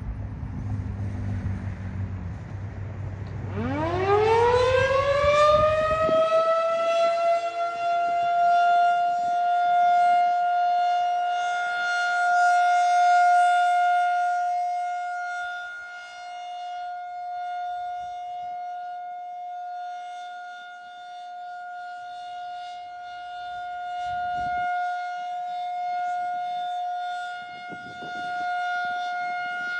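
Federal Signal 2001-SRN rotating tornado siren winding up about three seconds in: a quick rising wail that levels off into one steady tone, held through the monthly test. The tone slowly swells and fades as the horn turns.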